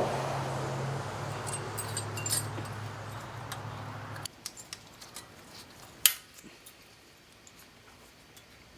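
A steady background hum cuts off suddenly about four seconds in. Then come light metallic clicks and taps as a steel brake pad clip is pressed into the caliper bracket, one sharper click about six seconds in.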